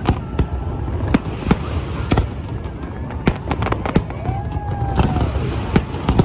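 Aerial fireworks shells bursting, with sharp bangs at irregular intervals over a steady low rumble.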